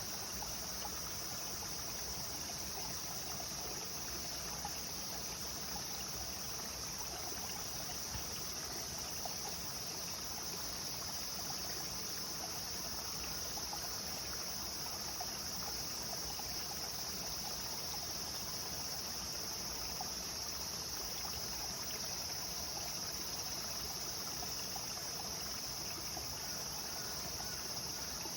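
Clear mountain river flowing and rippling steadily, with a constant high-pitched insect drone over the water.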